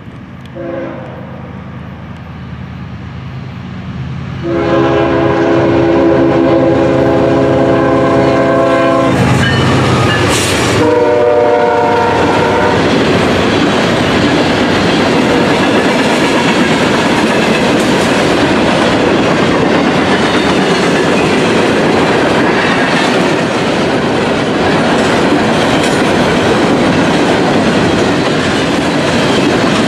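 Diesel freight locomotive's air horn blowing for a grade crossing: a short note, then a long several-tone blast and another blast ending about twelve seconds in, with a loud burst of noise as the locomotive goes by. After that a long train of hopper cars rolls past with a steady rumble and the clickety-clack of wheels over rail joints.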